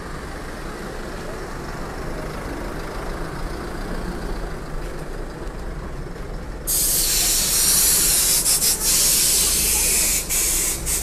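Hyundai Mighty EX8 truck's diesel engine running as the truck drives off. About two-thirds of the way through, a loud hiss of compressed air from its air brakes starts and lasts about four seconds, broken by a few short gaps.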